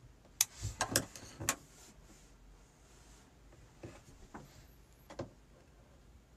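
A quick cluster of sharp clicks and knocks with some rustling about half a second to a second and a half in, then three softer single clicks spread over the following few seconds.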